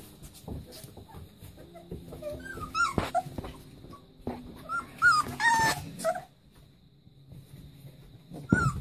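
Leonberger puppies whimpering and squeaking in short, high-pitched cries while they play, in a few bursts with a quieter pause between.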